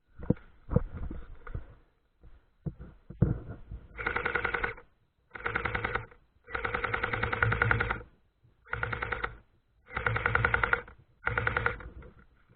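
Airsoft electric gun firing on full auto: six bursts of rapid, even shots, the longest over a second. They come after a few seconds of scattered knocks and clatter.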